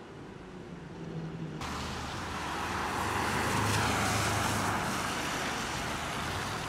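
Porsche 911 flat-six engine passing by, cutting in suddenly about a second and a half in, growing louder to a peak a couple of seconds later, then easing off as the car drives away.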